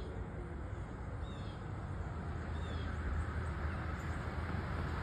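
A bird giving a short, falling chirp about three times, roughly every second and a half, over a steady low rumble of distant traffic that grows slightly louder toward the end.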